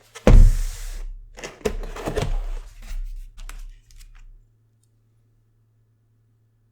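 Cardboard keyboard box and packaging being handled and opened: a loud knock with a rustling hiss, then several more knocks and scrapes, stopping after about four seconds.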